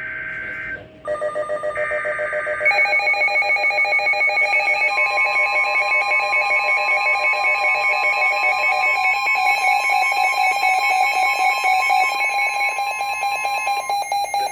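Emergency Alert System severe thunderstorm warning on NOAA Weather Radio. It opens with the last buzzy SAME data bursts of the alert header. From about a second in, the Midland weather radio's own alert alarm sounds: a loud, rapidly pulsing beeping of several tones. From a few seconds in the broadcast's steady attention tone joins it, holding until near the end.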